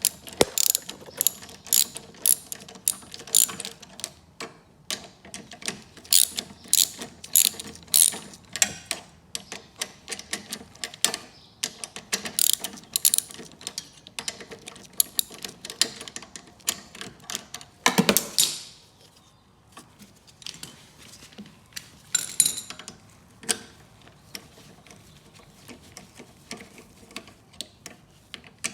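Ratchet wrench clicking in quick runs of strokes as a carburetor mounting bolt on a lawnmower is loosened, with short pauses between runs. There is one louder clatter about eighteen seconds in, after which the clicks come more sparsely.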